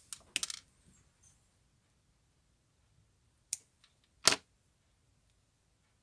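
Small clicks and taps of hands handling wires and small parts at a soldering bench: a few quick clicks as it begins, then two sharper clicks a little under a second apart past the middle, the second the loudest.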